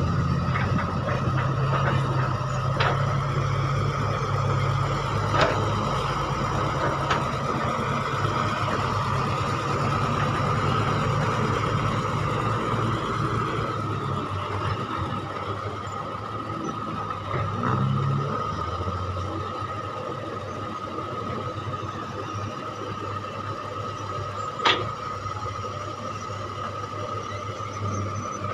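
Kobelco Mark 5 hydraulic excavator at work, its diesel engine running steadily with a constant high whine over it and a few sharp metallic clanks. The low engine note changes and drops about 18 seconds in.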